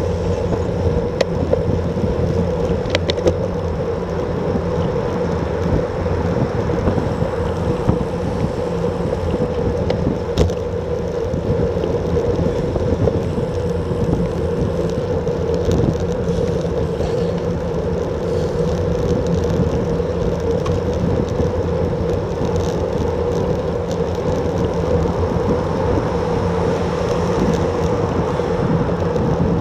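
Steady wind and road noise on a bicycle-mounted action camera riding at about 34 km/h, with a few small clicks.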